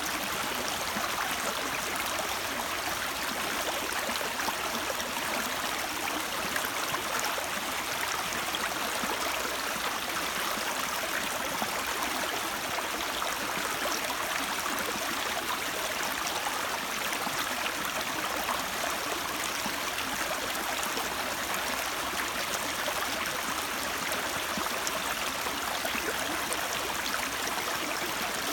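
Water running in a stream, a steady, even rush with gurgling.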